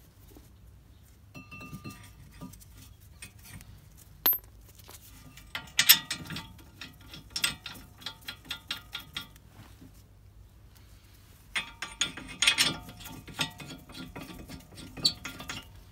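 Ratchet wrench clicking in two long runs of quick, even clicks as a socket works a front brake caliper carrier bracket bolt, with a sharp metallic clink between them.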